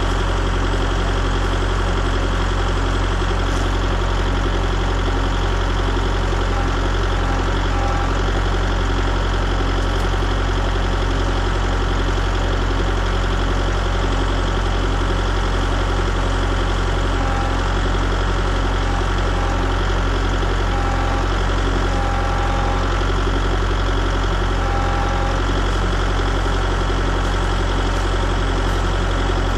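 An engine running steadily at idle, its hum unchanging throughout.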